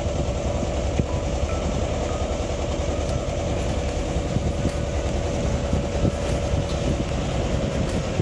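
Engine of a wooden motor boat running steadily under way, a low rumble with a steady hum above it.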